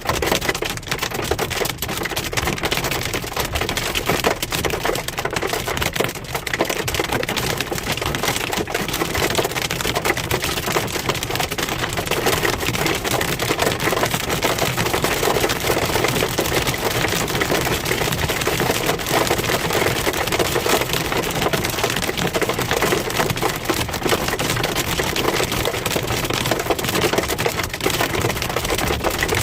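Hail pelting a car's body and windshield: a dense, steady clatter of countless small hits.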